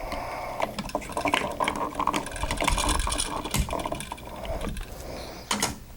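Small irregular clicks and scrapes of hand work on a wall switch: a wire loop being fitted onto the switch's terminal screw.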